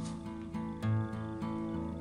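Background music on acoustic guitar, with plucked notes.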